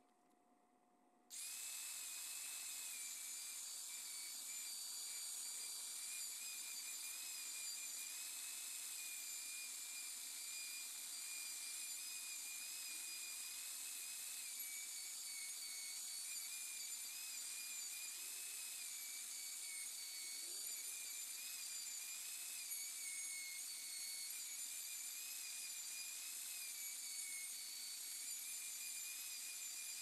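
Plunge router running with a steady high-pitched whine as it cuts a mortise into the wooden edge of a workbench, the pitch wavering slightly with the load. It starts about a second in.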